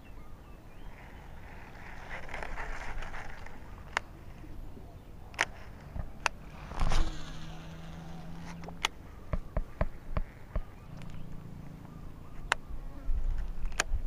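Shimano SLX baitcasting reel and rod being handled while a lure is fished back: scattered sharp clicks and taps from the reel, with a low steady hum that comes twice, in the middle and a little after.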